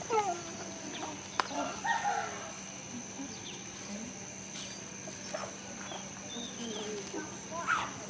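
A dog's short falling whine at the start, then chickens clucking now and then, with a brief rising call near the end.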